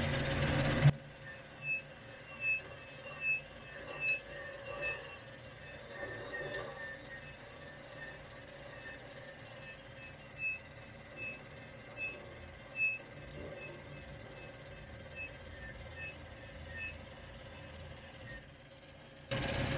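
Metal lathe turning an axle shaft while a carbide cutoff tool parts deeper into its soft core: a faint steady running sound with a short high chirp repeating a little more than once a second. A louder low hum cuts off about a second in.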